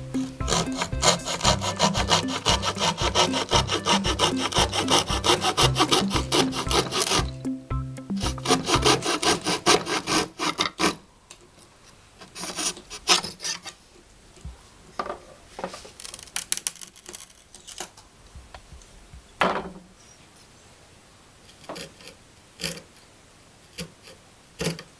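A hand saw cutting through wood in quick, even back-and-forth strokes, which stop about eleven seconds in. After that there are only a few scattered light knocks.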